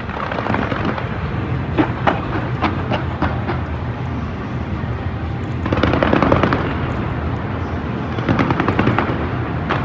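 Aerial fireworks going off in rapid volleys of crackling pops and bangs, with dense clusters about six seconds in and again near the end.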